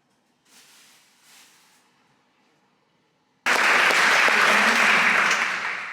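Audience applauding, cutting in abruptly about three and a half seconds in after a few seconds of faint hiss, and easing off slightly near the end.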